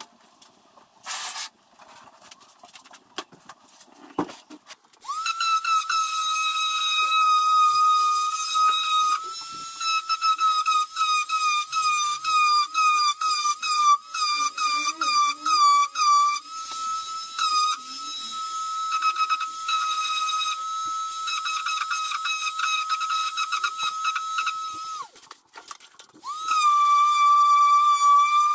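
A handheld power tool's motor whining at a steady high pitch, sagging in quick repeated dips as it bites into foam. It cuts out briefly near the end and starts again. A few clicks and knocks come before it first starts.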